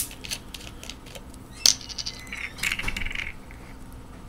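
Screw cap being twisted off a plastic bottle of carbonated Mountain Dew: a sharp click, then a run of small clicks as the cap turns and the seal breaks, and another sharp click about a second and a half in. This is followed by about a second of fizzing.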